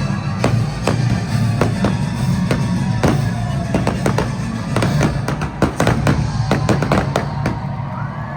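Fireworks bursting over loud show music. The bangs come steadily, thicken into a rapid finale flurry about five seconds in, and stop shortly before the end, leaving the music.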